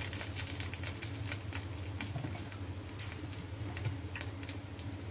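Rava uttapam batter cooking on a hot tawa: irregular small crackles and pops over a steady low hum.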